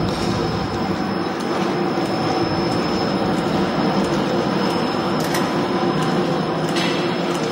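AS-650 automatic folder gluer running steadily, its carrier belts and rollers carrying crash-lock bottom carton blanks, with a thin high whine and faint regular ticks over the steady mechanical noise.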